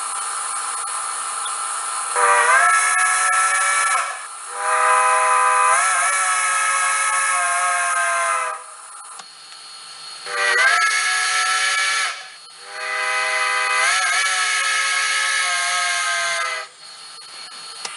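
Recorded steam locomotive whistle from a model-railway DCC sound decoder, played through a small mobile-device "sugar cube" speaker. The whistle sounds twice in a short-then-long pattern, over a steady steam hiss that runs on between the blasts.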